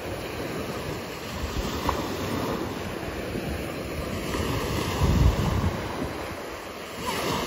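Small ocean waves breaking and washing up onto a sandy beach, a steady surf wash, with wind buffeting the microphone in low rumbling gusts, loudest about five seconds in.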